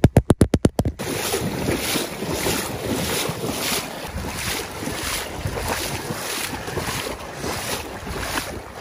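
Water splashing and sloshing in a steady rhythm of about two surges a second as a dog moves through a marsh, with wind on the microphone. It opens with a quick run of about ten sharp knocks in the first second.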